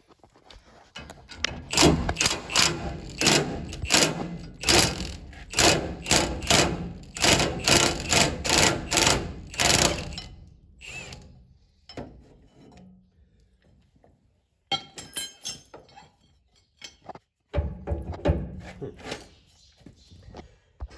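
Impact wrench hammering in a string of short bursts on a gear puller's screw, trying to break a seized pulley loose from a John Deere 7720 combine's secondary countershaft. The bursts come about two to three a second for ten seconds, stop, then come back in two shorter groups in the second half.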